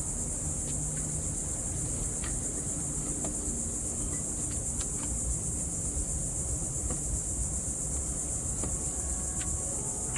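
Steady high-pitched chirring of crickets or other insects, with a few faint scattered clicks and knocks.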